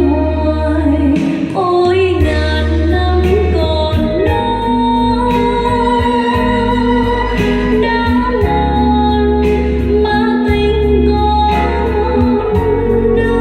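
A recorded song with singing, keyboard and a steady bass line, played back through JBL 4312 loudspeakers.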